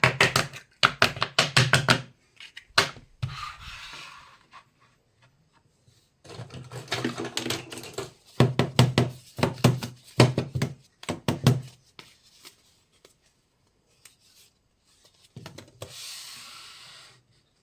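Small plastic toy kitchen pieces handled and set down: bursts of quick clicks and knocks, with two short rustles in between.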